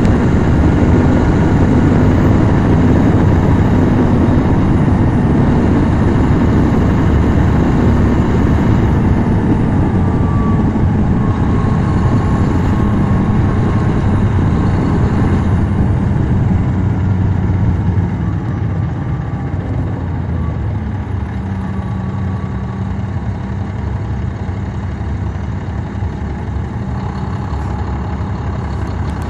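A NABI 40-SFW transit bus's Caterpillar C13 ACERT diesel engine running, heard from the rear of the bus where the engine sits. It is loud and steady, then drops to a lower, steadier level about two-thirds of the way through.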